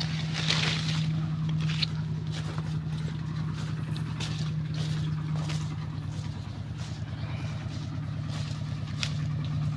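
An engine running steadily in the background at an even pitch, with leaves and branches brushing and rustling close by now and then.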